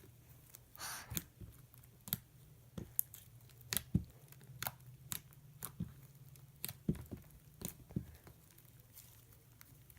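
Sticky slime being worked by hand with activator, giving irregular sharp clicks and pops about once or twice a second.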